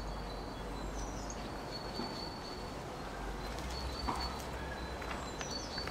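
Faint outdoor ambience: thin, high bird calls recurring over a low steady rumble, with a soft click or two.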